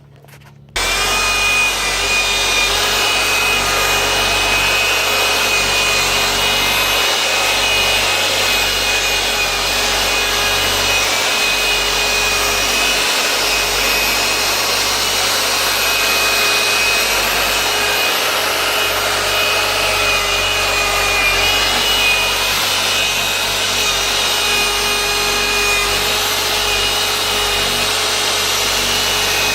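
A handheld electric power tool switches on about a second in and runs steadily: a motor whine over the rasping of an abrasive pad rubbing on the surface being worked.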